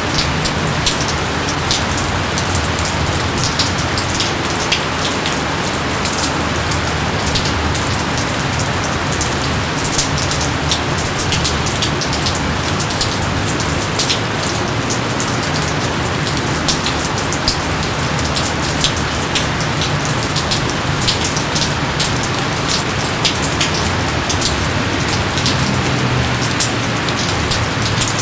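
Steady rain: a constant hiss with many sharp single drop hits scattered through it.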